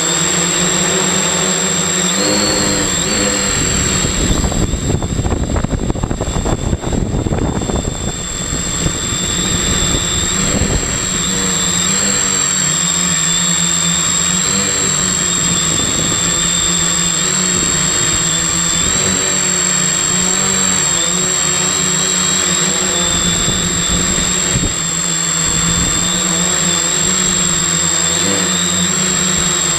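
Multirotor drone's brushless electric motors and propellers whirring steadily, heard from the airframe itself, with a high steady whine above. A loud rushing rumble swells a few seconds in as the drone climbs, then settles back by about eight seconds in.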